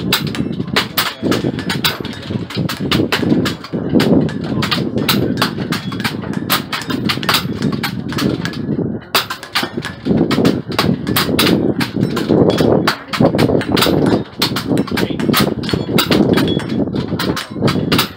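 Pre-charged pneumatic air rifles firing along a benchrest firing line: a rapid, irregular string of sharp shots from many benches at once, several a second, over a steady background noise.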